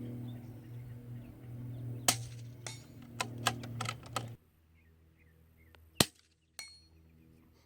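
A suppressed .22 LR bolt-action rifle, an Anschutz 1712 with an AAC Element 2 suppressor firing subsonic match ammunition, fires one shot: a single short sharp crack about six seconds in, followed half a second later by a lighter click with a brief metallic ring. Before that, a quick string of sharp clicks and rattles over a steady low hum.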